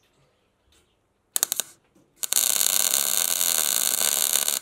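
Electric arc welding a tack on 3/16-inch steel plate. A few short sputters as the arc is struck about a second and a half in, then a steady arc for about two seconds.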